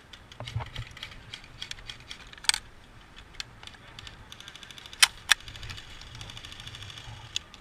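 Airsoft gun clicks on an outdoor field: scattered sharp clicks, two loud snaps about five seconds in, and fast, even runs of clicking from about four seconds in.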